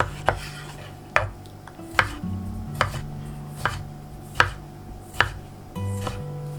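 Kitchen knife chopping on a cutting board in slow, even strokes, about one every 0.8 seconds, with background music underneath.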